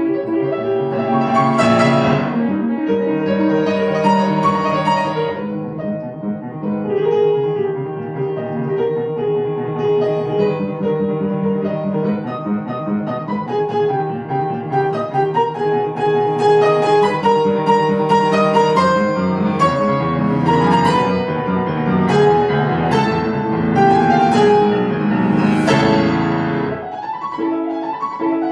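Grand piano played solo: fast, dense classical passages with full chords, dropping to a quieter passage near the end.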